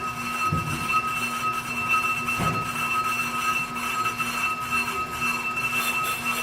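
On-car brake lathe running, turning the brake rotor on the vehicle's hub with a steady high-pitched whine. Two dull knocks come about half a second and two and a half seconds in.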